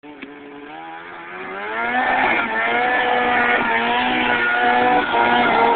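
Snowmobile engine revving up: its pitch climbs over about a second and it grows much louder, then holds at high, steady revs.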